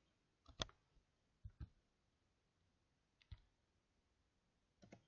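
About five faint, isolated clicks of a computer mouse and keyboard, irregularly spaced, with near silence in between.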